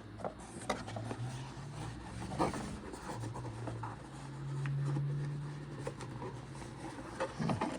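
A cardboard box and paper inserts being handled and rummaged through, with rubbing, scraping and small clicks. A low steady hum swells for about two seconds in the middle.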